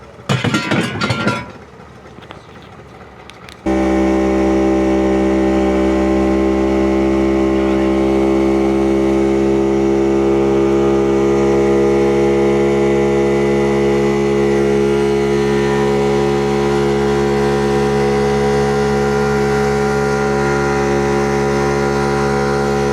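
A brief loud burst of noise, then a watercraft engine starting up abruptly a few seconds in and running at a steady, unchanging pitch.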